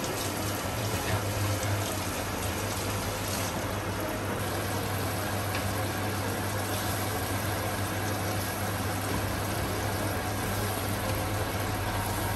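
Whole flour-coated grouper deep-frying in a wok, the oil bubbling and sizzling steadily around it as hot oil is ladled over the fish, with a steady low hum underneath.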